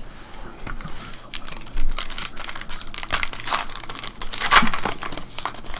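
Foil wrapper of a trading card pack being torn open and crinkled, an irregular run of sharp crackles and rips.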